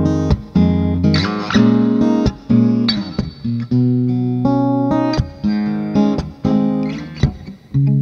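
SQOE A830C acoustic-electric guitar, solid mahogany top with mahogany back and sides, played in a sound demo: plucked chords ring out and change about every half second to a second, each starting with a sharp attack.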